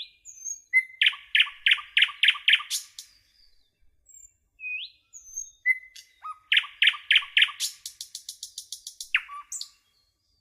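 A songbird singing two phrases. Each is a run of clear repeated notes, about four a second, that speeds up into a quick high trill at the end, with short rising call notes in the gaps.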